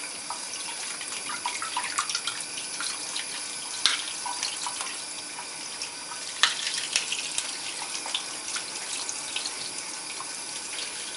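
Kitchen tap running steadily into a stainless steel sink as broccoli florets are rinsed under the stream, with a few sharp splashes and knocks, the clearest about four seconds in and again a couple of seconds later.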